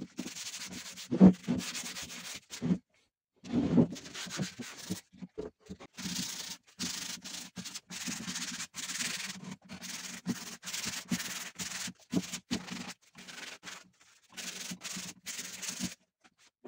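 Sandpaper rubbing over the wood of a bentwood chair in repeated scraping strokes, with brief pauses between runs.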